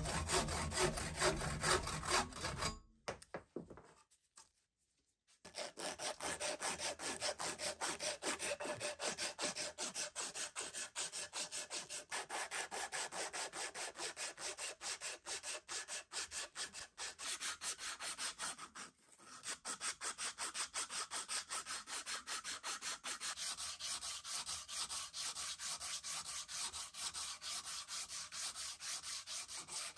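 A handsaw cuts through the end of a wooden hammer handle for about three seconds. After a short pause, sandpaper is rubbed by hand along the wooden handle in quick, even back-and-forth strokes, with a brief break about two-thirds of the way through.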